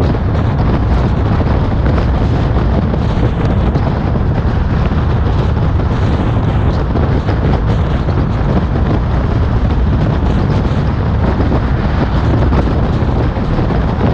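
Steady rushing wind buffeting on a bonnet-mounted action camera's microphone, mixed with the car's road noise, from a car driving at road speed.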